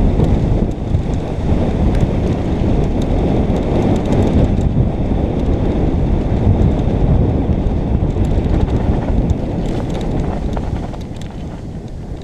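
Wind buffeting a helmet-mounted camera's microphone during a fast downhill mountain-bike descent on a dirt trail, with the bike's tyres and frame giving scattered clicks and rattles. The rush eases off near the end as the bike slows.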